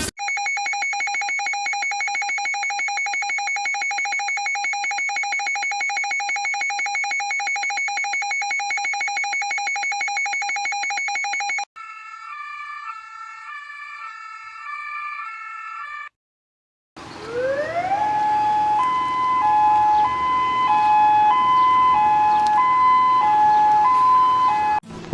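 Emergency alert system alarm tones played back from recordings. A steady, rapidly pulsing buzzy tone runs for about twelve seconds and stops abruptly. A quieter stepping sequence of electronic tones follows, then a second of silence, then a tone that glides up and alternates between two pitches like a warble.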